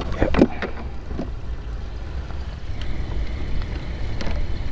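Wind buffeting the microphone, a steady low rumble, with a few short knocks and clatters in the first second and another near the end.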